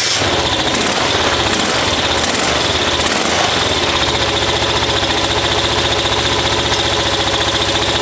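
Moto Morini 350's small 72-degree V-twin engine running just after being kick-started, a little uneven for the first few seconds, then settling into a steady run.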